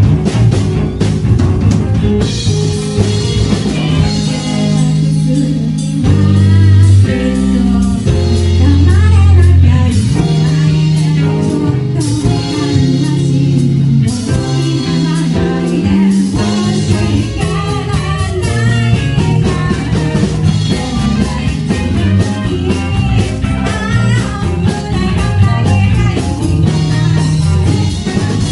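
A live rock band playing loud through a club PA: a woman sings lead over electric guitars, bass and a drum kit.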